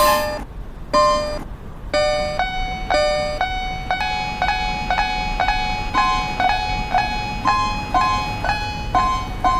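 Stylized cartoon level-crossing warning chime: piano-like ringing notes, one about a second in, then from two seconds in a steady strike about twice a second alternating between two pitches.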